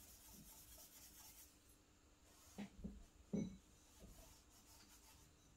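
Charcoal stick scratching faintly on drawing paper, with a few short, louder strokes a little past halfway.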